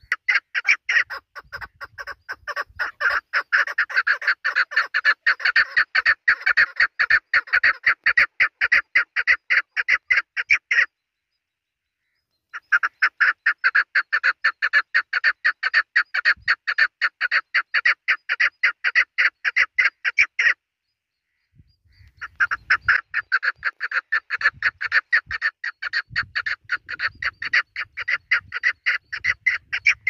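Chukar partridge calling: a rapid, evenly repeated series of loud chuck notes, in three long bouts broken by two short pauses of about a second and a half.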